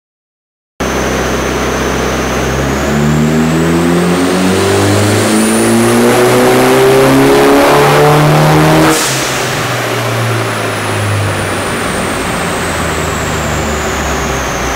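Turbocharged 4G63 inline-four of a Mitsubishi Lancer Evolution VI Tommi Mäkinen making a full-throttle power run on a chassis dyno in 4th gear: the engine note climbs steadily for about six seconds. About nine seconds in, the throttle is shut with a short burst of noise and the pitch drops to a lower, steadier drone as the run winds down, while a high whine falls away slowly.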